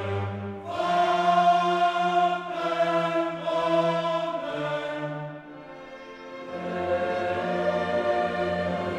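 Choral music laid over the video, with voices holding long sung notes. It softens briefly a little past the middle, then swells again.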